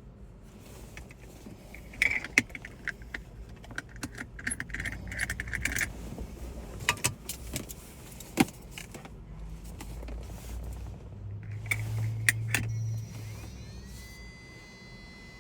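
Small metal repair tools and parts being handled, with irregular sharp clicks and light metallic jingling. A low hum sounds briefly near the middle, and a steady high whine glides up and holds near the end.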